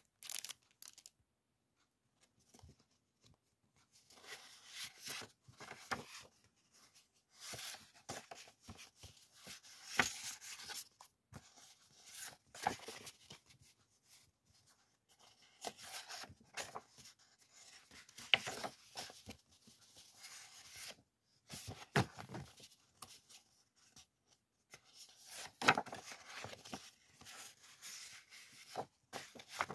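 Sheets of illustrated scrapbook background paper being handled and leafed through, together with a clear plastic sleeve crinkling, in irregular bursts of rustling with short pauses.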